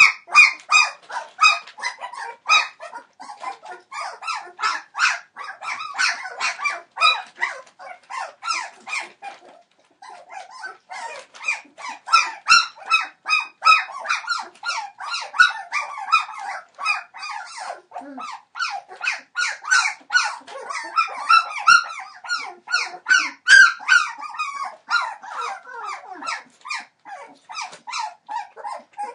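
Three-week-old Entlebucher Mountain Dog puppies whining and yelping, many short high calls overlapping one another. The calls stop briefly about ten seconds in.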